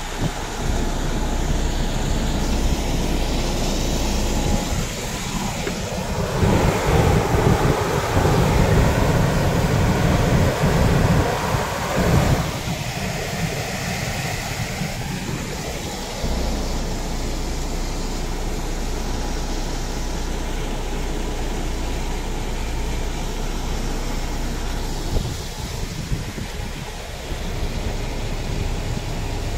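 Wind buffeting the microphone on an open ship's deck, with sea wash, over a steady low hum from the ship's engines. The wind is loudest from about six to twelve seconds in.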